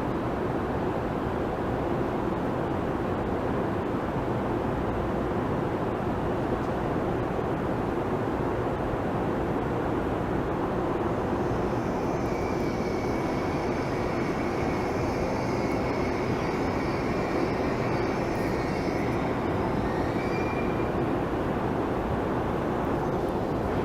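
Shinkansen train running at the station platform: a steady, dense rumble, with a high whine and a thin high tone coming in about halfway through and dying away a few seconds before the end.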